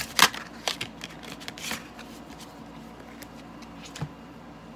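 Tarot cards being handled and laid out on a cloth-covered table: a quick run of sharp card snaps and slaps in the first two seconds, the loudest just after the start, then one soft thump about four seconds in.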